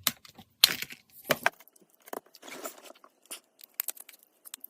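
Irregular sharp clicks, snaps and short scrapes of a small plastic phone being handled and taken apart by hand, loudest about a second in, then sparser ticks.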